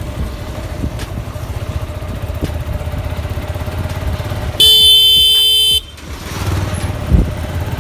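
Suzuki Gixxer 155 single-cylinder motorcycle engine running under way. About halfway through, a loud vehicle horn blares once for about a second and cuts off sharply.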